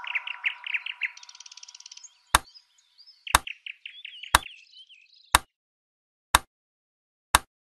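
Metronome ticking once a second, six sharp clicks starting about two seconds in. Over the first few seconds a run of quick, high chirps fades out.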